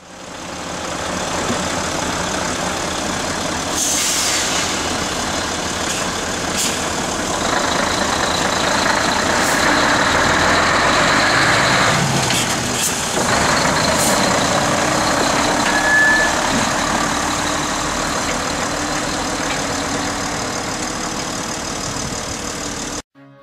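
Heavy truck's diesel engine running as the low-loader pulls away, with a brief hiss about four seconds in and a few sharp clicks along the way.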